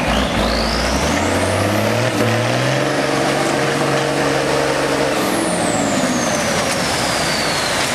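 M35A2 deuce-and-a-half's multifuel diesel engine revving up under load as the truck pulls through mud, holding high revs for a few seconds, then dropping back. A high whine climbs and falls along with the engine.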